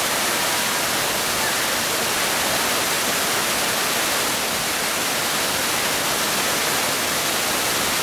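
Steady roar of a waterfall, water pouring over rock ledges close by.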